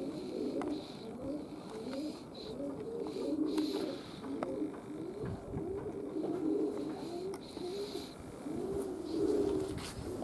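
Domestic pigeons cooing, one coo after another without a break.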